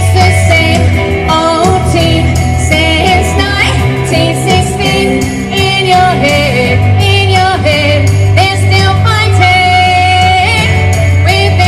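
Female lead vocalist singing an 80s-style rock song live over loud accompaniment with a steady bass line and a driving beat.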